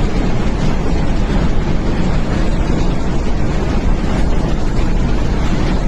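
Floodwater rushing past in a loud, steady, unbroken rush of noise.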